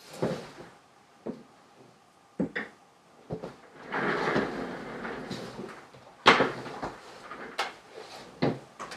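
Household handling noises: boot steps on a wooden floor, a mug set down on a desk and an office chair pulled out and sat in. It comes as a string of separate knocks with a longer rustling stretch around the middle; the loudest knock comes a little after six seconds.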